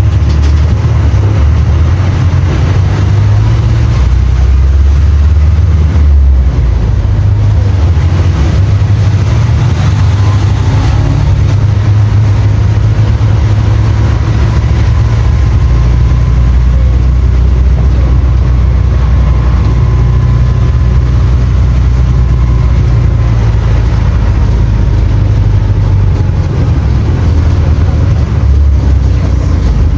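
Cummins Interact 4.0 four-cylinder inline diesel of a Volksbus 9-150 EOD bus running under way, its low engine note rising and falling as engine speed changes, with a faint whine about midway through.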